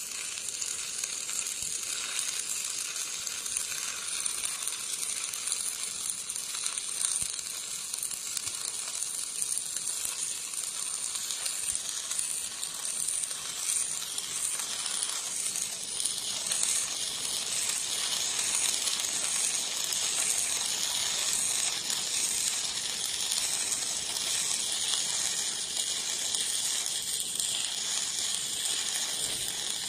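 Stick welding arc burning a 4 mm electrode: a steady crackling, sizzling hiss without breaks, a stable arc.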